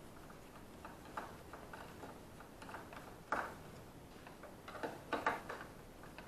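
Quiet, irregular clicks and light knocks of hands and tools working on a hoverboard's casing, with a louder knock about three seconds in and a few more near five seconds.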